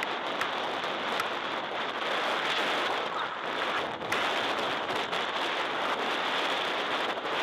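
Steady rush of wind noise on the microphone of a camera riding on an off-road motorcycle at speed, with a few light ticks.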